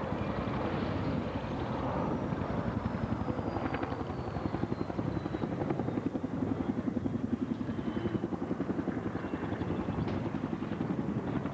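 Boeing B-17 Flying Fortress flying past low, its four Wright Cyclone radial engines droning with a fast, even throbbing beat.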